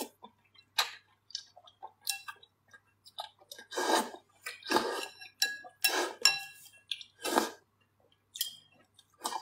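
A person slurping wide, flat Henan braised noodles (huimian) out of soup and chewing, in a run of short slurps that get louder from about four seconds in, with light clicks of chopsticks against the glass bowl.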